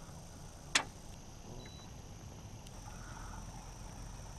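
A single sharp knock in the boat about a second in, over a faint, steady, high drone of insects.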